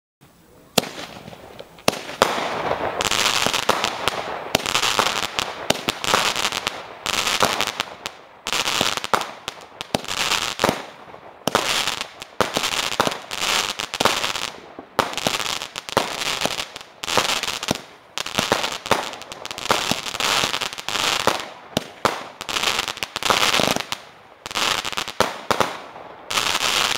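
Pandafeuerwerk 'Mushrooms' 25-shot comet-tail firework cake firing, about one shot a second. Each shot is a sharp report followed by a second or so of fizzing crackle from the bursting stars.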